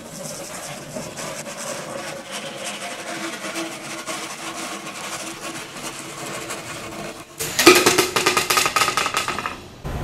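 A hand saw cutting through a plastic pipe in quick back-and-forth strokes, the pipe ringing faintly under the blade. About seven seconds in the strokes turn louder and harsher, then stop suddenly just before the end.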